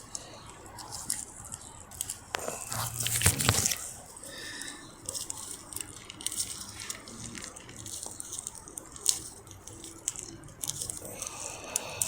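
Plastic protective cap being worked off the positive post of a new 12-volt car battery: crinkling, crunching plastic and scattered clicks, loudest about three seconds in.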